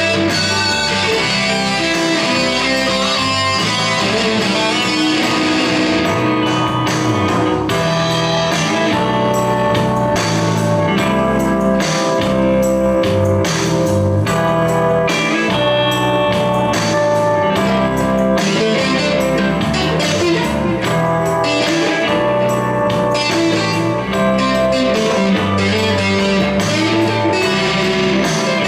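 Stratocaster-style electric guitar playing a melodic lead over a backing track with a bass line and a steady beat.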